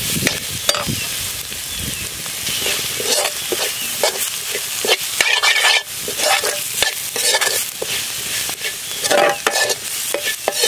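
Steel ladle stirring and scraping onions, capsicum and spice powders around a hot black iron kadai, with oil sizzling under frequent short scrapes and clinks of the ladle on the pan: the masala being sautéed until its raw smell is cooked off.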